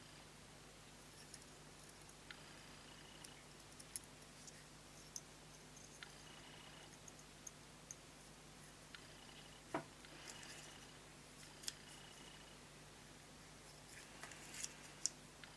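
Sparse small clicks and light taps, a few slightly louder about ten, twelve and fifteen seconds in, over a faint steady hum.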